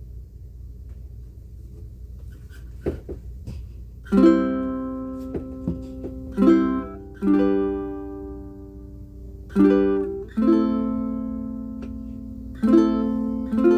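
Pono PCMP prototype ukulele with aNueNue Green Planet strings and a low-G string, played in low-G tuning. After a few seconds of faint hum and a couple of small clicks, slow strummed chords begin about four seconds in, each left to ring and fade before the next.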